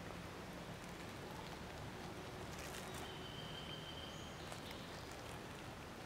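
Quiet outdoor forest ambience: a steady low background with a few faint clicks and rustles about halfway through, then a thin, steady high whistle lasting about a second and a half.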